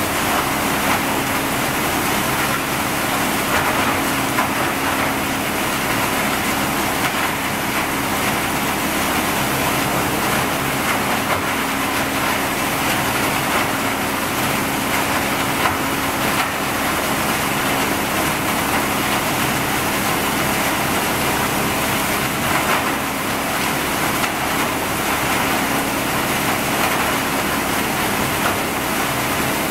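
Wood sawdust crusher (a hammer mill with a cyclone blower) running steadily: an even rushing noise over a low hum as scrap wood is fed in and ground. Now and then a steel shovel scrapes on the concrete floor.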